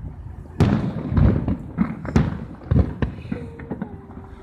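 Fireworks exploding overhead: a string of sharp bangs about half a second to a second apart, the loudest about half a second in and just after two seconds, each trailed by a low rumble.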